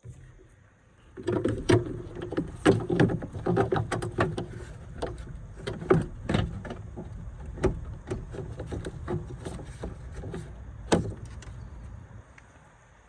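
Irregular knocks and clanks, several a second, from hard parts and tools being handled, over a low rumble. The sound starts about a second in and fades near the end.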